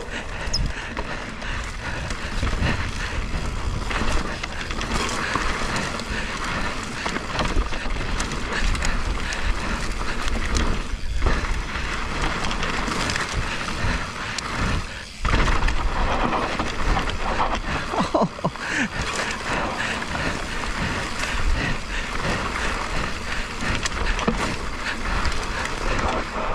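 Mountain bike riding a rough dirt singletrack: steady tyre rolling and bike rattle with wind rumble on the camera microphone, briefly dropping away twice, about 11 and 15 seconds in.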